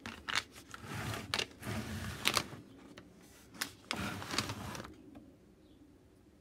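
Handling noise: a run of irregular sharp clicks and short rubbing, scraping sounds that stop about five seconds in.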